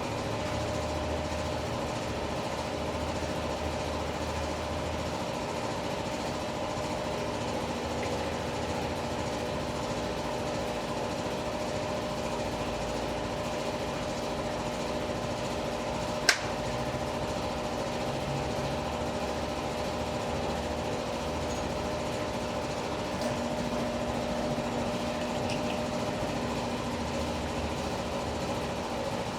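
A steady mechanical hum with several constant tones, unchanging throughout, and a single sharp click about halfway through.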